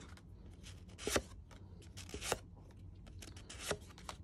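Stacks of cardstock tags and small paper cards being handled and shuffled: a run of light paper rustles and flicks, with three louder snaps about a second in, a little after two seconds, and near the end.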